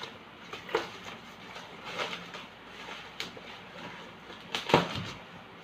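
Unboxing sounds: packaging being handled, a few separate clicks and knocks with the loudest about three-quarters of the way through.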